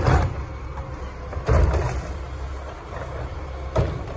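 Automated side-loader garbage truck's diesel engine revving up twice as its hydraulic arm reaches out and grabs a trash cart, with a sharp knock near the end.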